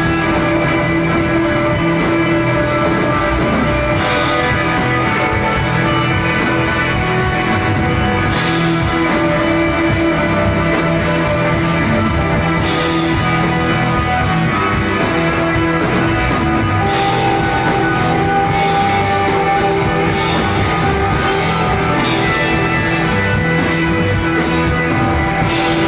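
Instrumental desert rock jam played live by a band on electric guitar, bass guitar and drum kit, with cymbal crashes every few seconds.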